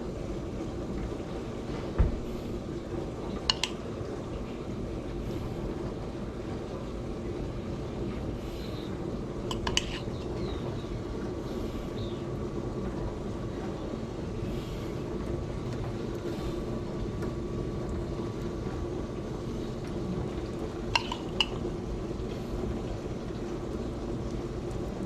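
Metal smoker racks clinking now and then as fish fillets are laid on them and the racks are handled, a few sharp clicks over a steady low hum.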